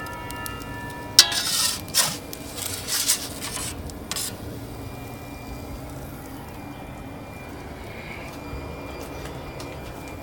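Metal clanks and scrapes, loudest in a handful of sharp knocks during the first four seconds, as the cooked pizza is checked. A steady low rumble runs on underneath.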